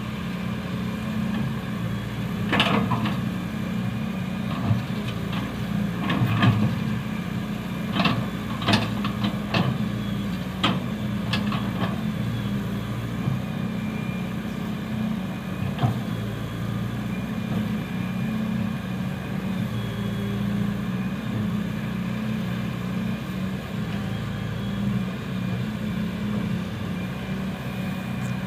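Diesel engine of a hydraulic excavator running steadily while it digs, with a run of sharp metallic clanks between about two and sixteen seconds in.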